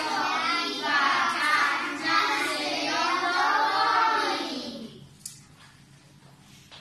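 A group of young children singing together. The singing ends a little past halfway through, followed by one short click.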